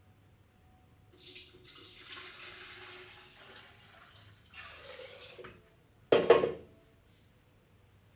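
Water running or pouring with a hiss for a few seconds, then a shorter splash, then a single sharp knock about six seconds in, the loudest sound.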